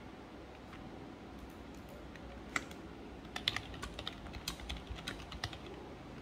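Typing on a computer keyboard: a few key clicks about two and a half seconds in, then a quick, irregular run of keystrokes lasting about two seconds.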